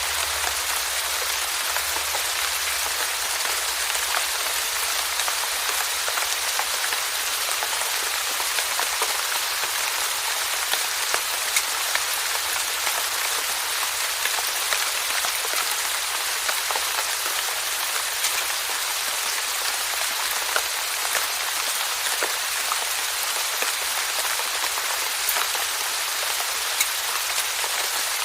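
Steady rain falling on a surface, an even hiss with scattered individual drops ticking through it.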